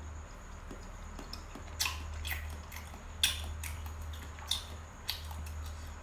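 Close-up eating sounds: wet chewing with several short, sharp crunchy bites, over a steady low hum.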